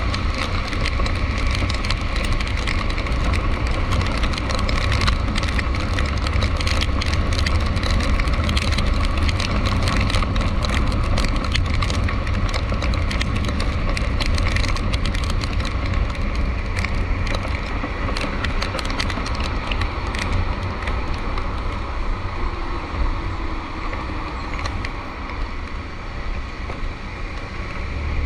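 A motor vehicle driving in road traffic in the rain: a steady low engine and road rumble under a constant crackling hiss of rain and wet spray. It eases off a little near the end.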